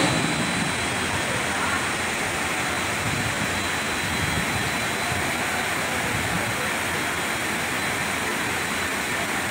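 Steady roar of heavy rain and rushing floodwater.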